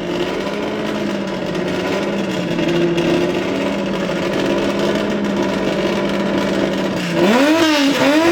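Ford race car's engine idling steadily, then blipped twice in quick succession near the end, the pitch rising and falling with each blip.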